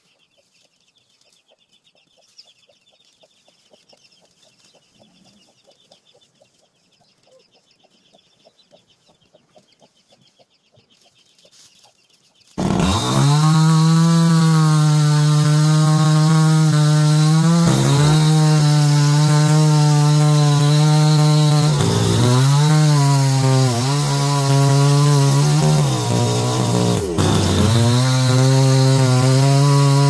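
Faint clucking and peeping from a hen and chicks, then about 12 seconds in a petrol chainsaw starts cutting logs loudly, held at high revs. Its pitch sags and recovers three times as the chain bites through the wood.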